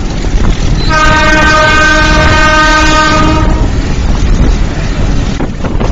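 Meter-gauge diesel locomotive's horn sounding one long blast of about two and a half seconds, beginning about a second in. It rises over steady wind buffeting on the microphone and the running noise of the train.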